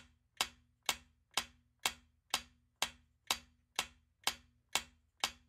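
Countdown timer sound effect: a steady clock-like ticking, about two short sharp clicks a second, each with a faint low tone under it.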